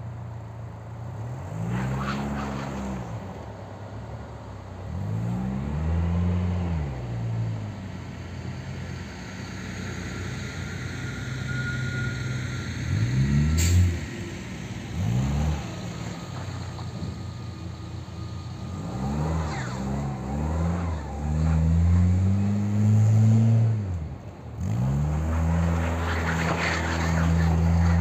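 Volkswagen Golf Mk2's engine revving up and dropping back over and over as the car slides around in circles on snow.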